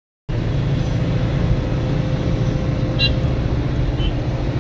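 Steady low rumble of a moving bus heard from inside the passenger cabin: engine and road noise with a faint steady hum, and one brief high click about three seconds in.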